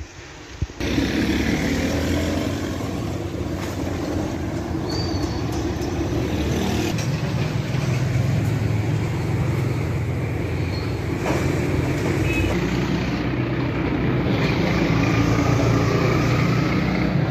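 Honda CG 125's single-cylinder four-stroke engine starting about a second in, just after a sharp click, then running steadily.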